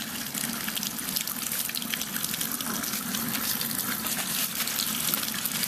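Tap water running steadily from a faucet into a sink.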